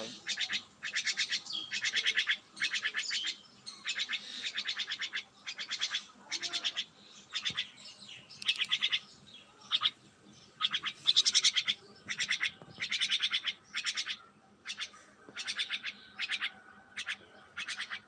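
Myna giving a run of short, rapid rattling calls, about one a second with brief pauses.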